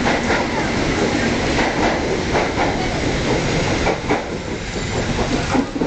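Taksaka express passenger train passing at speed, its wheels clacking over the rail joints over a steady rush of running noise. The clacking thins out and the level drops a little after about four seconds as the end of the train goes by.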